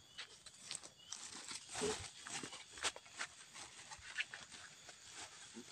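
Faint, irregular crackles and rustles of footsteps on leaf litter along a garden path, with a plastic carrier bag crinkling as it is handled.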